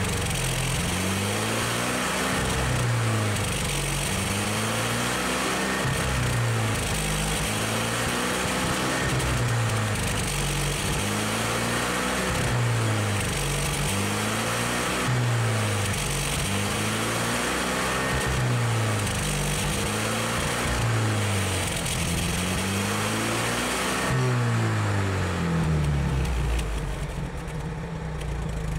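1971 International Scout 800B engine, heard at the tailpipe, revved up and let back down about every two and a half seconds, then dropping to a steady idle near the end. The engine is being revved to burn out carbon deposits.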